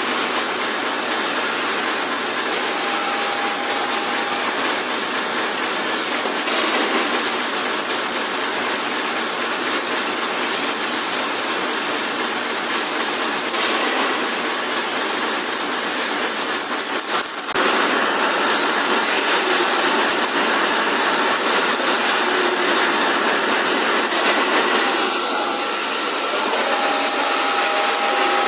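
Steady, loud mechanical din of factory machinery running, with a constant high hiss on top; it dips briefly partway through.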